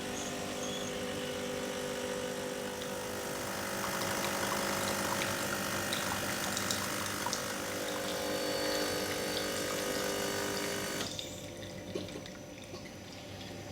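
De'Longhi Motivo espresso machine's pump running steadily, pushing hot water through the empty filter holder into a cup to prime the boiler circuit. It cuts off about eleven seconds in, leaving only a faint trickle.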